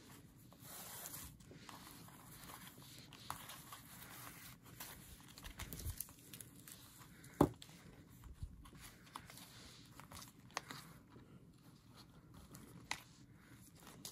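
Faint handling sounds of a handmade paper junk journal: a ribbon pulled loose from around it and paper and card rustling, with scattered small taps and clicks, the sharpest a little over halfway through.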